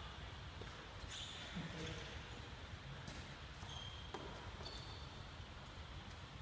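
Footsteps and brief sneaker squeaks on a sports-hall floor, with a few light taps, all faint.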